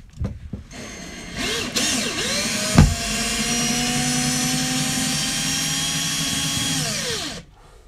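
Cordless drill driving a screw through a steel L bracket into a carpeted plywood floor. The motor speeds up and slows a few times under the trigger, with a sharp knock about three seconds in, then runs steadily for about four seconds and winds down near the end.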